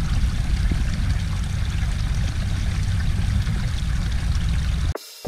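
Shallow creek water running and trickling over rocks close by, a steady rush with a deep rumble underneath; it cuts off suddenly near the end.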